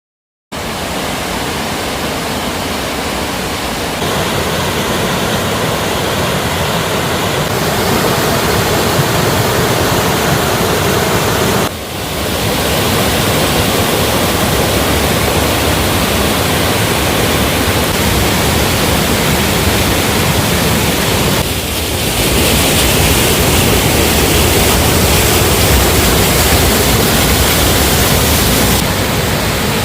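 Waterfall rushing: a steady, loud sound of falling water, with short dips in level about 12 and 22 seconds in.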